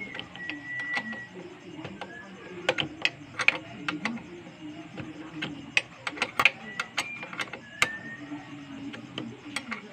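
Irregular metal clicks and taps from hands and tools working on a motorcycle muffler's mounting, over a low background murmur of voices, with a few short high chirps.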